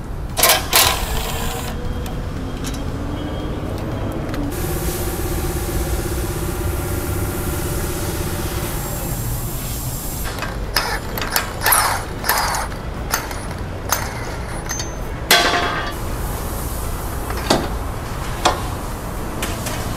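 Repair-shop work sounds: a motor whirs up in pitch and runs steadily for several seconds, then scattered sharp metallic knocks and clanks follow.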